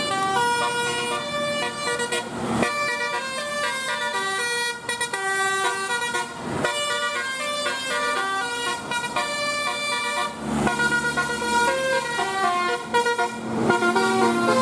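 Indonesian bus 'telolet' musical horn playing a tune: a fast run of short stepped notes, with a steady low note sounding near the end.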